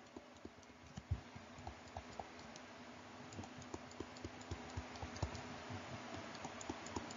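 Faint, irregular light clicks and taps, a few a second and more frequent in the second half, from dashed lines being drawn stroke by stroke on a screen, over a faint steady low hum.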